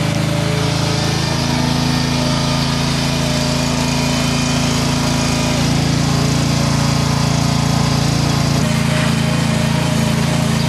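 Engine of a Grillo G85d two-wheel walking tractor running steadily as it pushes its front blade through a layer of humus, with a slight change in the engine note near the end.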